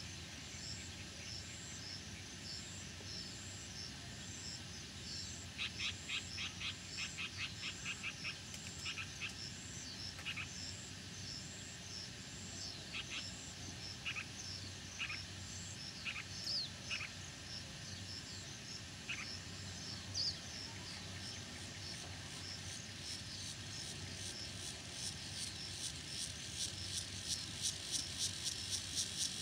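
Countryside insect and frog chorus at dusk, with high, repeated chirping throughout. A quick run of clicking calls comes a few seconds in, followed by scattered single calls. Near the end a pulsing, cicada-like buzz builds up and grows louder.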